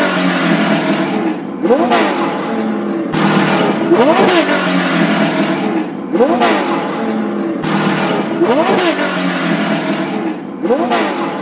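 A vehicle motor revving up and dropping back again and again, about every two seconds, in short clips with sudden cuts.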